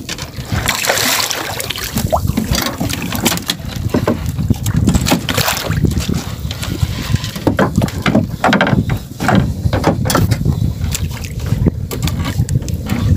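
Wind buffeting the microphone aboard a small wooden outrigger fishing boat, with water sloshing against the hull and irregular knocks and clatter of handling in the boat as the longline is worked.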